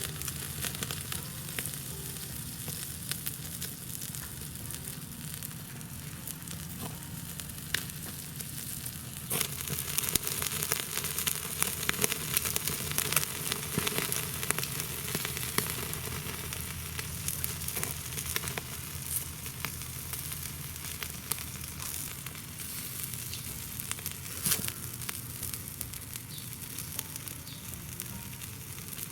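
Wood fire burning in a small wood stove, with a steady sizzle and many small crackles and pops that grow busier about ten seconds in.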